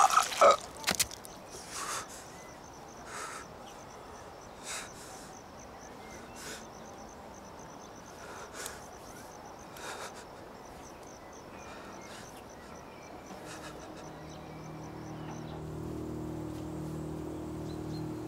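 Crickets chirping in a steady, fast pulse, with a few faint knocks scattered through. Low held notes of orchestral film music fade in near the end.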